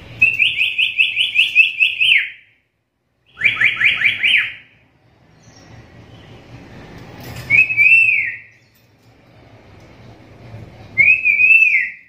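Black-capped lory calling: a run of about eight quick rising notes lasting about two seconds, then a shorter run of about five, then two brief rising-and-falling calls a few seconds apart.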